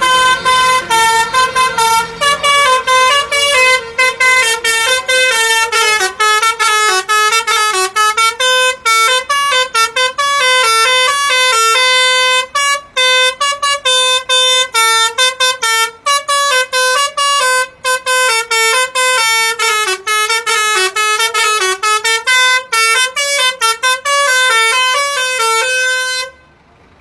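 Basuri 'telolet' multi-tone bus horn playing a fast tune of short notes that step up and down in pitch. It cuts off suddenly shortly before the end.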